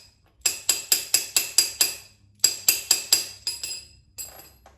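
Quick, evenly spaced metal-on-metal strikes, about four a second, in two runs of seven or eight blows with a short pause between; each blow rings and the second run dies away. It is a socket being struck to knock out a lug nut stuck inside it.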